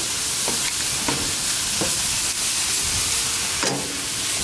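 Marinated chicken drumsticks sizzling steadily on a hot grill grate, with a few short crackles as the marinade spits.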